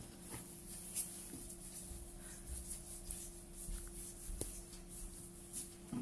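Faint scraping, with a few light clicks, as thick fermented idli batter is poured from a steel pot into a glass bowl and scraped off with a spoon. A steady low hum runs underneath.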